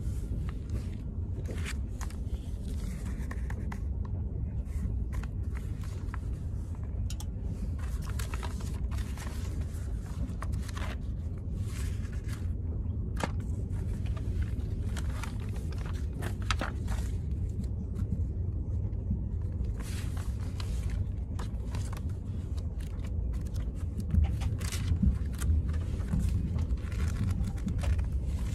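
Steady low rumble of a moving train, with the crinkle and rustle of magazine pages being handled and turned over it, the rustling loudest near the end.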